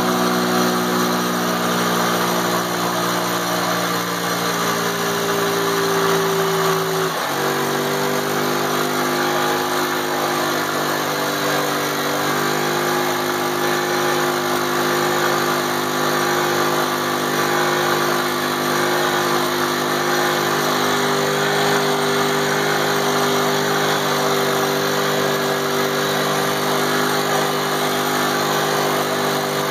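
A 50cc ATV engine running at high, steady revs during a chained burnout, held against the rev limiter. Its pitch shifts suddenly about seven seconds in and again around twelve seconds.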